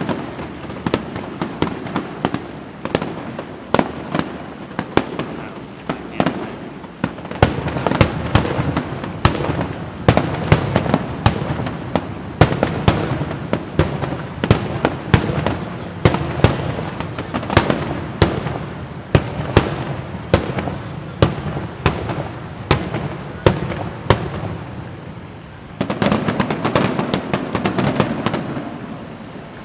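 Fireworks show: a dense barrage of aerial shells bursting, sharp bangs and crackles several a second over a rolling rumble, easing briefly near the end before picking up again.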